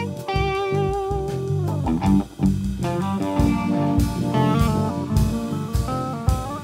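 Instrumental rock jam: a guitar lead holds one long, slightly wavering note that bends down, then plays a quick run of notes, over bass guitar and a drum kit.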